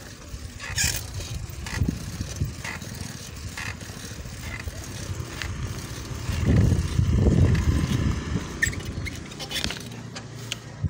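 Low, rough wind rumble on the microphone of a moving handheld phone, with scattered small clicks and rattles of handling. The rumble swells loudest about six to eight seconds in.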